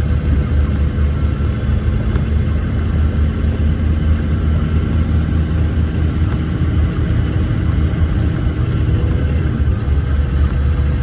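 Loaded logging truck's diesel engine and drivetrain running steadily, heard from inside the cab as a deep, even drone.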